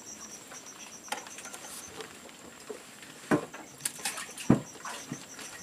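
Scattered light knocks and clicks of fishing gear and a plastic cooler box being handled on a wooden boat, the sharpest knock about four and a half seconds in. A faint high chirp repeats about six times a second underneath.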